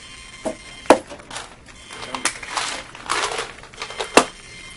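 A plastic bottle of antacid tablets being opened and handled: a sharp click about a second in and another near the end, with tablets rattling and rustling in between.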